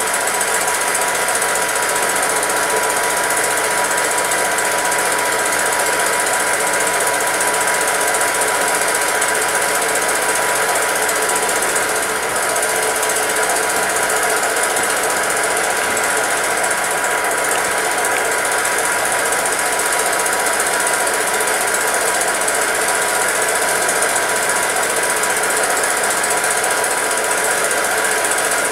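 Film projector running, its mechanism giving a steady, rapid clatter.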